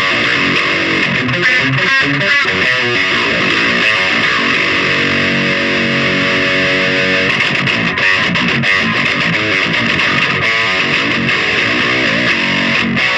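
Heavily distorted electric guitar played through a Solar CHUG distortion pedal, riffing and strumming chords. About halfway through, a chord is left ringing for a few seconds, then the riffing picks up again.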